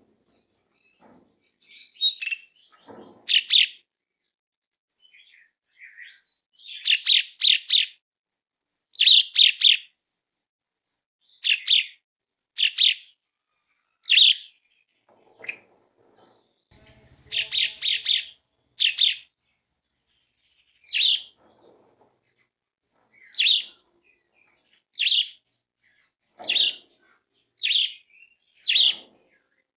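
Caged Asian pied starling (jalak suren) calling loudly again and again: short, harsh notes, some single and some in quick runs of three or four, every second or two.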